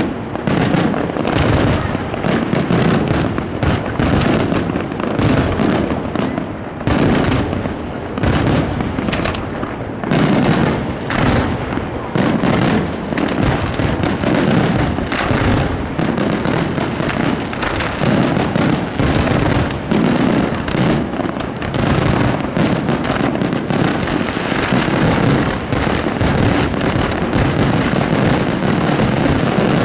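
Aerial fireworks display bursting at close range overhead: a dense, continuous barrage of bangs and crackling with no pauses. The crackle grows thicker over the last third.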